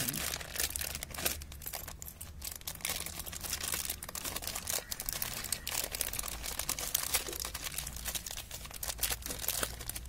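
A thin clear plastic packet crinkling in the hands as it is worked open, a dense run of small irregular crackles.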